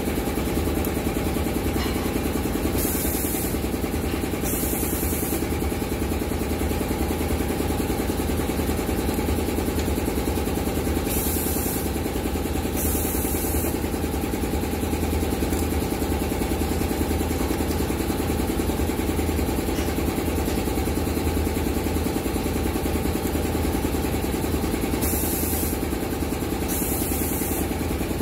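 Hammer-type revolving riveting machine running steadily with a mechanical hum. Three times, a pair of short hisses of air about a second and a half apart marks its pneumatic stroke down and back as hinges are riveted.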